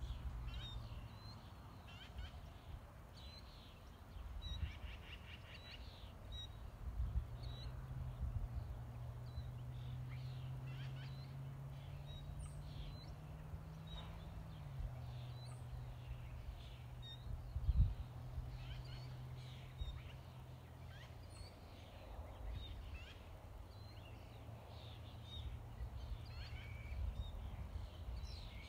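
Small birds chirping and calling at scattered moments, over a low steady hum that rises slightly in the middle and drops back; a single brief thump about two-thirds of the way through.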